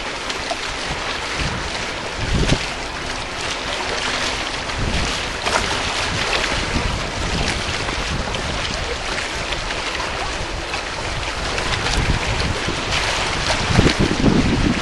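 Wind buffeting the microphone: a steady rushing noise with heavier low rumbling gusts near the end.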